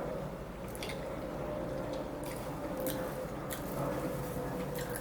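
Close-up mouth sounds of someone chewing a fish taco: soft wet squishing with a few short, sharp clicks spaced about a second apart, over a faint steady hum.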